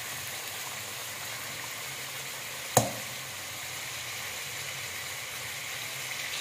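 Chicken pieces and tomatoes frying in oil in a metal karahi pan: a steady sizzle. There is one sharp knock about three seconds in.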